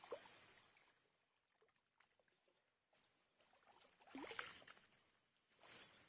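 Faint rustling of reeds and dry nest grass that swells three times: at the start, about four seconds in, and near the end.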